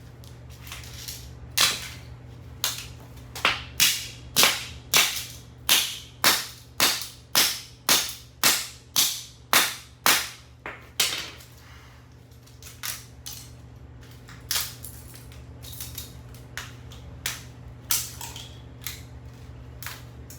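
Repeated sharp blows smashing the plastic pieces of a VTech cordless phone, about two a second at first, then thinning to scattered, weaker hits after about eleven seconds.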